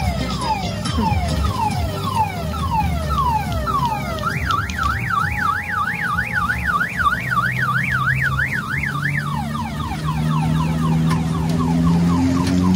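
Electronic siren sound effect played by a kiddie car-train ride, cycling through car-alarm patterns: falling wails about two a second, then a fast up-and-down warble about three times a second from roughly four to nine seconds in, then falling wails again.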